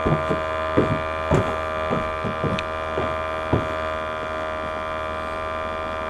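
Footsteps going down wooden stairs: about eight knocks spread over the first three and a half seconds, then they stop. A steady hum runs underneath.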